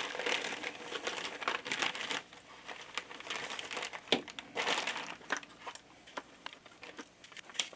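Thin plastic bag crinkling and rustling as a model locomotive is slid out of it, loudest in the first two seconds and again about five seconds in, with a few light clicks and taps in between.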